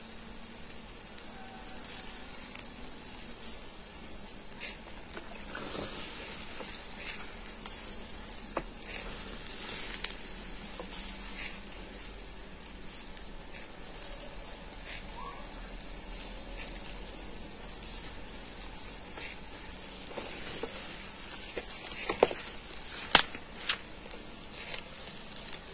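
Shashlik meat in a wire grill basket sizzling over glowing charcoal in a metal mangal, with scattered crackles and pops. Two sharp pops close together near the end are the loudest.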